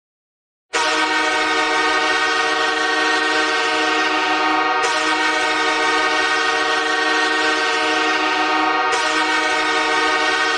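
Hockey arena goal horn blowing one long continuous blast, a chord of several pitches held steady. It starts suddenly after a moment of silence, about three-quarters of a second in.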